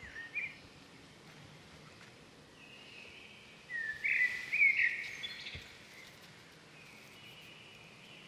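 Birds calling over a faint steady outdoor background: a short high call just after the start, then a louder run of quick, high chirping notes about four seconds in.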